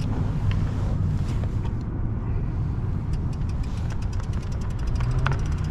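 Electric fat-tire bike riding on pavement: a steady low rumble of wind on the microphone and 20 x 4 inch CST Big Boat tires rolling. A run of fast, light ticks comes in about halfway through.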